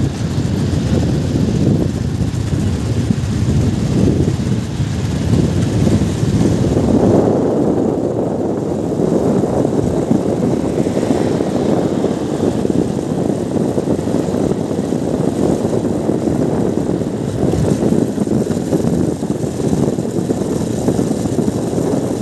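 Heavy tipper trucks on the road, a steady low rumble with no clear engine note.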